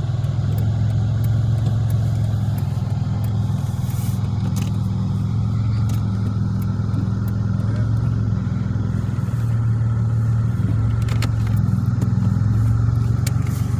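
Dodge Magnum's engine running at steady low revs with a constant low drone, the pitch shifting slightly about two-thirds of the way through, with a few faint ticks over it.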